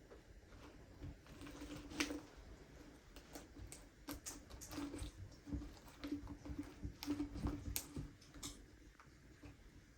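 Homemade slime being kneaded and stretched by hand, giving faint, irregular sticky clicks and small pops.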